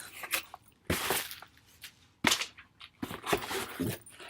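A handful of short, sharp rustles and knocks, spaced irregularly, from a package and the book inside being handled and unwrapped.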